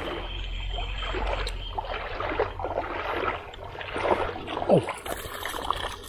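Topwater lure splashing and plopping across shallow creek water as it is retrieved, with the loudest splashes about four to five seconds in.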